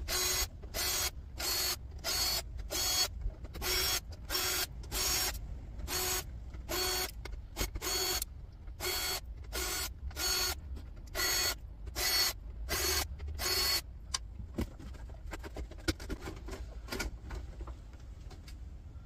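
Cordless drill-driver running in short bursts, about twenty in quick succession, each a brief motor whine as it backs out the screws holding the CD drives in a steel tower case. The bursts stop about fourteen seconds in, leaving only a few faint clicks and handling noises.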